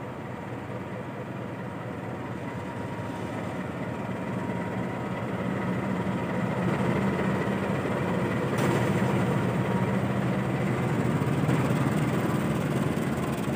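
A KAI CC 206 diesel-electric locomotive departs with its train, its diesel engine running under load and growing louder as it passes. The coaches then roll by behind it.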